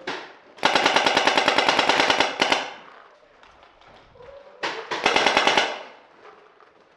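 Paintball marker firing in rapid bursts: a long burst of about two seconds of shots in quick succession, then a shorter burst of about a second near the middle.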